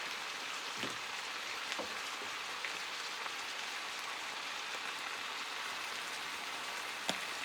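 Chicken strips with sliced peppers and onions sizzling steadily in oil in a frying pan, with a few light ticks.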